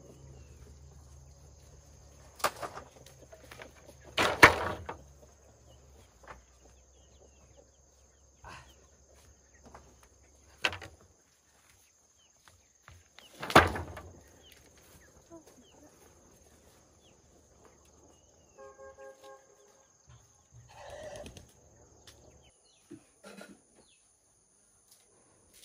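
Scattered sharp knocks, two of them much louder than the rest, over a faint steady high-pitched tone. About three-quarters through comes a short run of quick pitched pulses.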